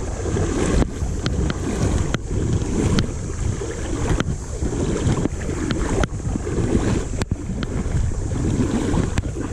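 Wind buffeting the microphone over moving river water, a steady rough rumble, with scattered light clicks throughout.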